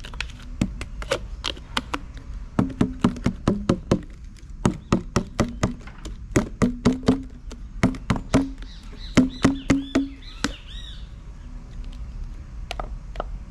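A plastic tub of frozen green seasoning is knocked and tapped again and again to loosen the frozen block. The sharp, hollow knocks come in quick bursts of a few a second and stop about ten seconds in.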